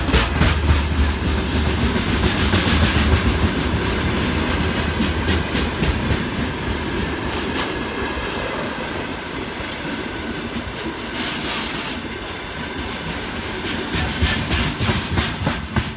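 Freight train's open gondola wagons rolling past at close range: steady rumble with repeated clickety-clack of wheels over rail joints. The deep rumble eases after about six seconds, and the clacks come thick again near the end.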